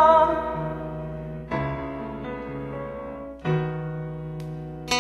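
Karaoke backing track in an instrumental break: sustained keyboard chords, a new chord struck about a second and a half in and again about three and a half seconds in. A sung note tails off at the very start.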